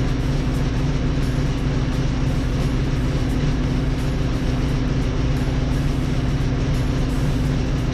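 Backhoe loader's diesel engine idling steadily at an even pitch.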